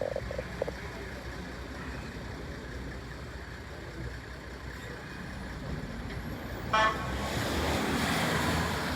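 Road traffic running steadily, with a short single horn toot about seven seconds in, then a vehicle getting louder as it approaches.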